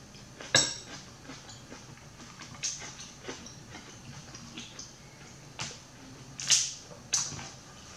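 Snow crab leg shells cracking and snapping by hand: about six short, sharp cracks, the loudest about half a second in and about six and a half seconds in.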